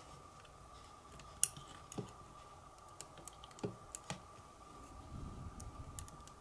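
Scattered small clicks and taps of fingers handling a circuit board while trying to seat a tiny cable connector onto a wifi card, with a faint steady tone underneath.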